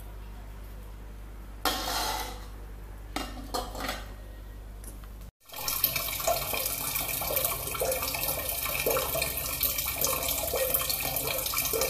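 Water running from a tap into a pot, a steady rushing hiss that starts suddenly about five seconds in. Before it, a low steady hum with two brief clattering, rustling sounds as the pot of leaves is covered.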